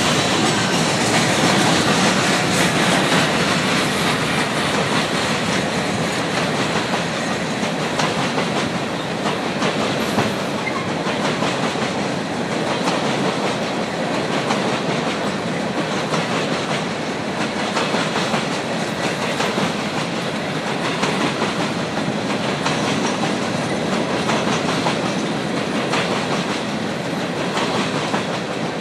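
Freight train of open-top hopper cars rolling steadily past, with steel wheels rumbling on the rails and clacking at intervals over the track.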